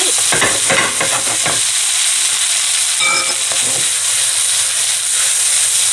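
A seafood and vegetable stir fry sizzling in a pan in its cornstarch-thickened sauce. A spatula stirs and scrapes through it, with clusters of short scraping strokes in the first second and a half and again around the middle.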